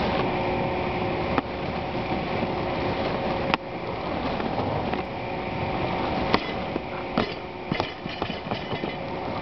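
Barbell lift on a wooden platform: several sharp knocks as the lifter's feet and the loaded bar strike the boards, the loudest about six seconds in as the bar comes back down, with smaller knocks after it. A steady hum with a few even tones runs underneath.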